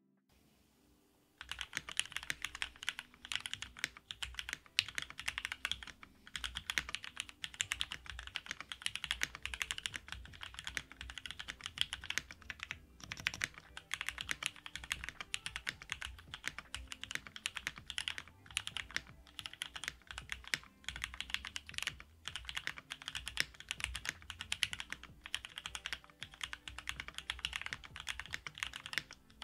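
Continuous fast typing on a GOK 7V mechanical keyboard with lubed Cherry MX Black Hyperglide linear switches, a polycarbonate plate, Poron plate foam and GMK keycaps. The typing starts about a second and a half in, with brief pauses between runs of keystrokes.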